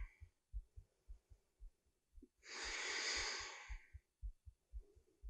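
A person breathing slowly and audibly: one long breath of about a second and a half near the middle and a fainter one near the end, with faint low thumps underneath.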